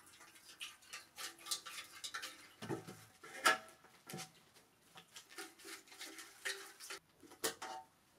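Handling of a bare steel motorcycle fuel tank: a knock as it is set down on a table about three seconds in, then small metal clicks and scrapes as its filler cap is worked.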